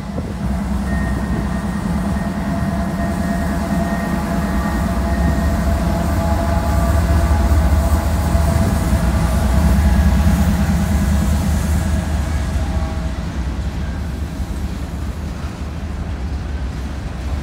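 Norfolk Southern diesel-electric freight locomotives passing at slow speed under a slow order, a deep engine rumble with steady whining tones, loudest about halfway through. The whine fades after the locomotives go by, leaving the rumble of covered hopper cars rolling across the steel bridge.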